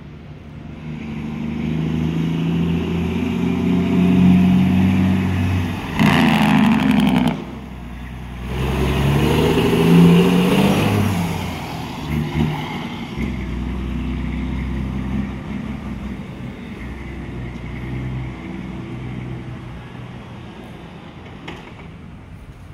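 Western Star semi truck's Detroit Diesel Series 60 12.7-litre engine accelerating across the yard, its note rising twice with a short dip between, and a loud, rough burst of noise about six seconds in. The engine then drops to a lower, steady sound that fades as the truck moves away.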